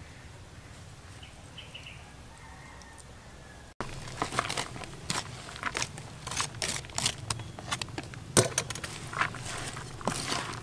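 Quiet outdoor background, then about four seconds in, an abrupt cut into dense, irregular crackling and rustling as a pile of shredded raw vegetables is poured into a plastic bowl and tossed with sliced cooked cow intestine.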